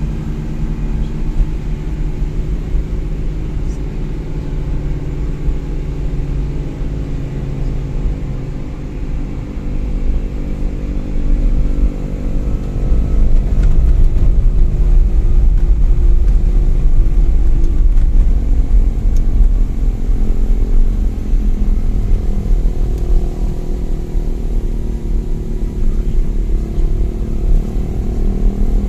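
A motor vehicle's engine running steadily with a low rumble, its pitch shifting slightly and growing louder about twelve seconds in.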